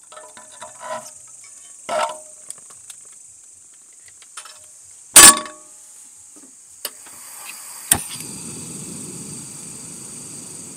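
Camp cooking: scattered clinks and knocks of utensils and cookware, one loud knock about five seconds in, over a steady high hiss. From about eight seconds in, a fuller steady sizzling sets in.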